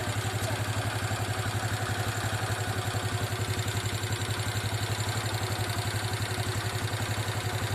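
Motorcycle engine idling steadily, with an even, rapid beat.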